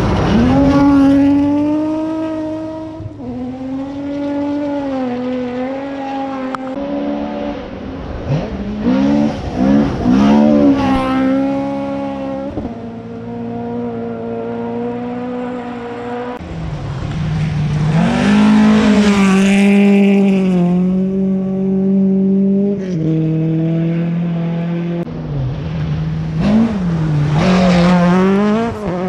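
Rally cars at full throttle on a gravel stage, several passing one after another, their engines revving hard with the pitch dropping and climbing again through the corner.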